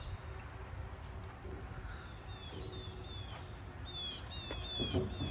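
Birds chirping: a run of short, quick, falling whistled notes starting about two seconds in, over a faint low rumble.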